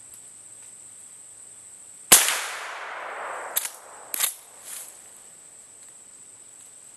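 A single shot from a Henry Big Boy Steel lever-action rifle in .41 Remington Magnum, about two seconds in, with a long echoing tail. About a second and a half later come a few sharp metallic clacks as the lever is worked to chamber the next round.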